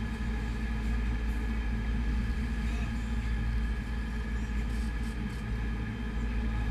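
Sportfishing boat's engines running steadily, a low drone with a steady whine in it, over the rush of wind and churning water.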